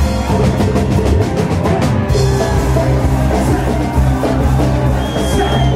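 Loud live band music from a stage sound system, with drums and heavy bass, and quick, even drum strokes in the first two seconds.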